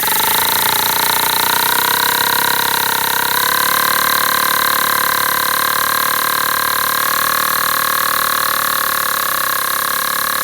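Homemade paper single-cylinder air engine running on compressed air from an air compressor: a loud, steady buzzing drone whose pitch rises slightly at the start and again about three and a half seconds in. Its paper intake is coming loose under the air pressure, which the builder blames on pressure building up at the intake.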